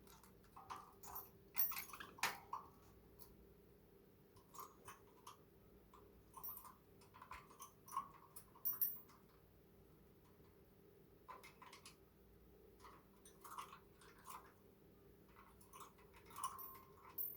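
Budgerigar grinding its beak: faint, irregular runs of small clicks and crunches, a sound typical of a drowsy, settling budgie.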